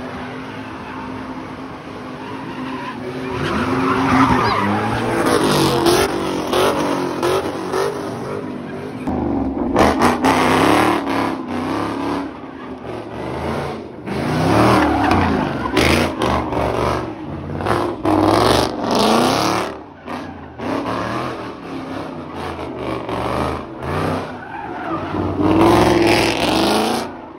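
A car doing donuts: the engine revs up and down over and over while the spinning rear tyres skid and squeal on the pavement, making tyre smoke.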